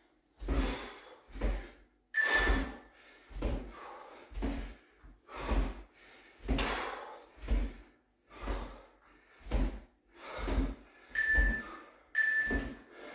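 Feet landing with a thump about once a second during side-to-side skater jumps on a hard floor. Near the end an interval timer beeps three times, a second apart, counting down the last seconds of the work period.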